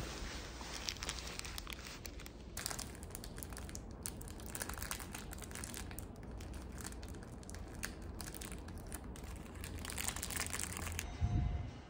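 Plastic film wrapper of a convenience-store sandwich crinkling and crackling as it is handled and peeled open. It grows dense a couple of seconds in and stops shortly before the end.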